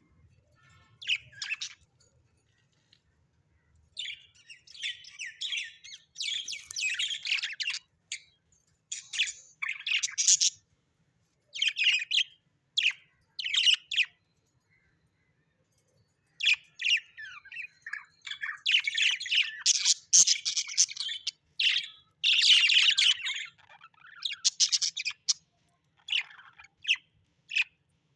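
Birds chirping and chattering in bursts of rapid, high calls, with a couple of brief pauses.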